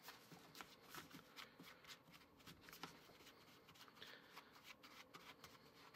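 Faint, irregular scraping and ticking of a rubber spatula stirring a crumbly flour, brown sugar and shortening mixture in a small plastic bowl.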